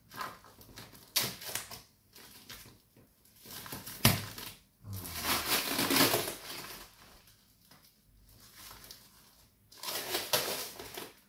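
Knife cutting and tearing through brown packing tape and a cloth-and-plastic parcel wrapping, with irregular rustling and crinkling. A sharp click comes about four seconds in, followed by a longer rustle of the wrapping, and another burst near the end.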